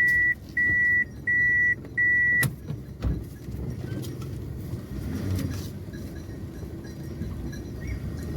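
A car's electronic warning beep, a high steady tone repeating about every 0.7 s, which stops with a click about two and a half seconds in. Then the low steady running of the car's engine and road noise, heard inside the cabin.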